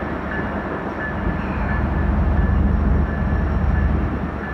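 Kansas City Southern diesel-electric freight locomotives pulling away with a steady engine rumble that grows louder about two seconds in.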